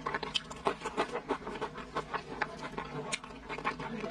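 A person chewing braised pork close to the microphone: irregular lip-smacking and chewing clicks, several a second.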